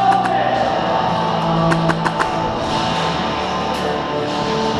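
Rock music with electric guitar, with a few sharp clicks about two seconds in.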